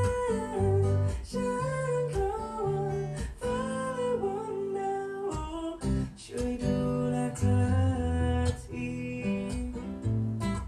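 A song played through a Klipsch Cinema 1200 Dolby Atmos soundbar and its subwoofer: a man singing over acoustic guitar, heard in the room as a sound test of the system.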